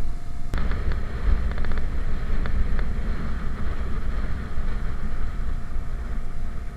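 Wind buffeting the microphone on a moving motor scooter, with a steady low rumble throughout. There is a sharp click about half a second in, followed by a short run of quick ticks.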